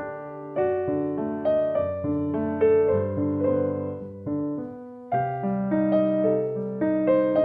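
Background piano music: notes and chords struck one after another, each ringing and fading, with a short lull about five seconds in before a new chord.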